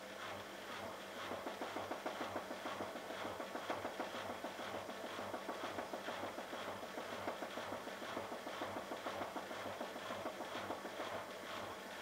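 Bosch Logixx WAS32461 washing machine running late in its cycle, with a fast, even patter of several beats a second.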